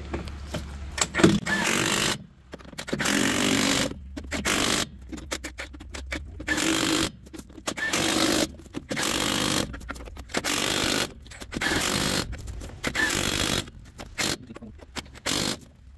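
Cordless impact wrench hammering truck wheel lug nuts tight, in about ten bursts of a second or so each with short pauses between them.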